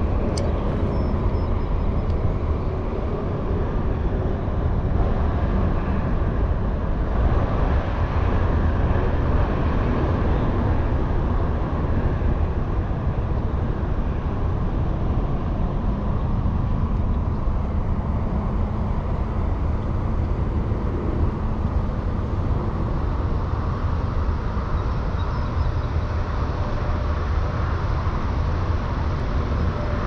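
Steady outdoor background rumble, heaviest at the low end, with no distinct events.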